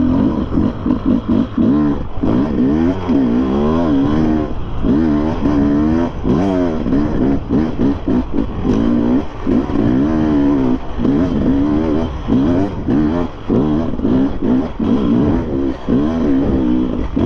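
Enduro motorcycle engine under hard throttle on a slippery hill climb, its revs rising and falling rapidly over and over as the rider works the throttle for grip.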